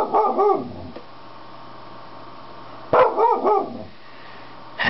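Pet dog barking in two short bursts: a few quick barks at the start and another run of barks about three seconds in.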